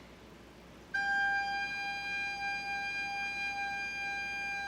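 Recorder sounding one long, steady note, G (sol), entering sharply about a second in and held evenly without wavering: a sustained long-tone exercise played with diaphragmatic breath support.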